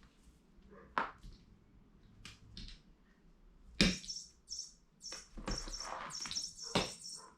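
Noisy bird cat toy chirping in repeated high bursts from about four seconds in, mixed with scuffling and a few sharp knocks, the first about a second in.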